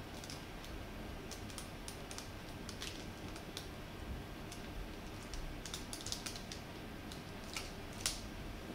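Plastic wrapper on a rice cracker being opened slowly: faint, scattered crinkles and crackles of the film, with a few bunched together after the middle and the loudest crackle near the end.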